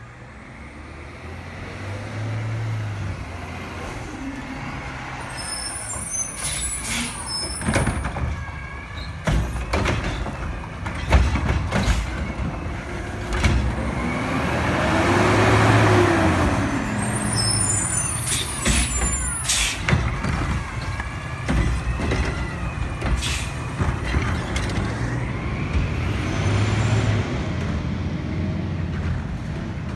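Front-loading garbage truck with an automated cart-tipping arm: its engine runs steadily, revving up and back down once a little past halfway as the truck pulls ahead. Short hisses of its air brakes come twice, and sharp knocks and bangs are scattered through the middle.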